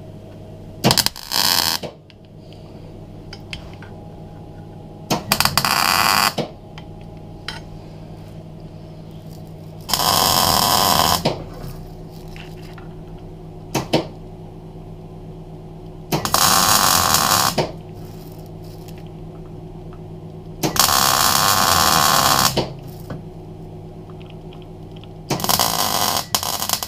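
MIG welder tack-welding steel angle-iron pieces into a brake drum puller: seven short bursts of arc crackle, each a second or so long and a few seconds apart, over a steady hum.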